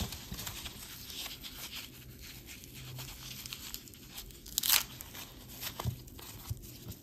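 Packing material being torn and crinkled open by hand: continuous rustling and crackling, with one louder rip about four and a half seconds in.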